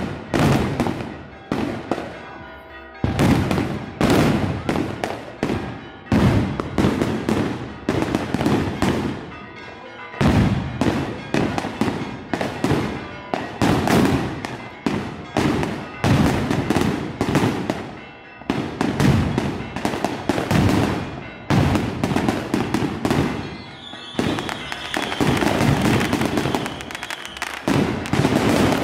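Firecrackers and bangers bursting in rapid, irregular volleys, many sharp bangs a second in clusters. A high steady whistle sounds for a few seconds near the end.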